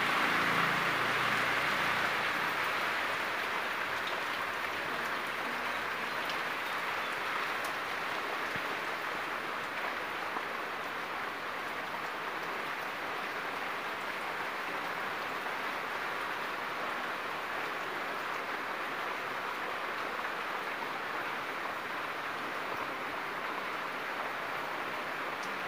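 Heavy monsoon rain falling steadily on the ground, puddles and plants: an even hiss that eases slightly after the first few seconds.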